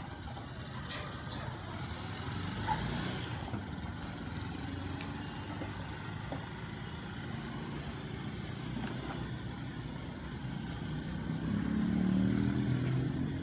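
Outdoor street ambience: a steady rumble of motor-vehicle engine noise. A low engine hum swells louder near the end and then eases.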